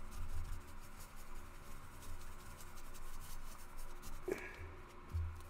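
Paper towel rubbing quickly back and forth over a plastic test piece, buffing freshly applied metallic paint to a shine. It makes a steady scratchy swishing with occasional dull bumps from handling.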